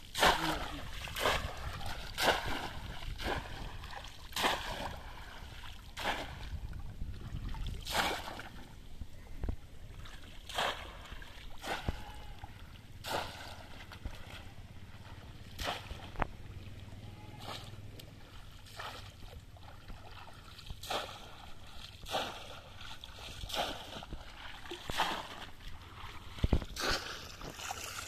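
Repeated splashes as a bamboo cone fish trap is plunged into and pulled out of waist-deep water, every second or two, with water sloshing around a wading person between strokes.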